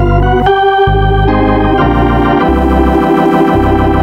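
Organ music: a quick run of chords with a heavy bass, each held about half a second, settling into one long sustained chord near the end.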